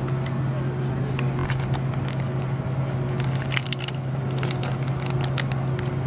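Steady low hum of an airliner cabin, with a clear plastic bag crinkling and crackling in the hand as a packaged headset is handled, mostly from about a second in onward.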